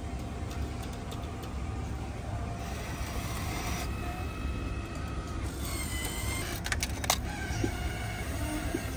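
Steady low rumble of indoor background noise in an airport terminal, with a few sharp clicks about seven seconds in.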